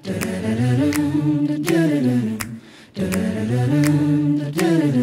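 Mixed a cappella vocal group humming sustained wordless chords in two phrases, the lower voices sliding down at the end of each, with a short break about two and a half seconds in. A sharp click marks each beat, roughly every 0.7 seconds.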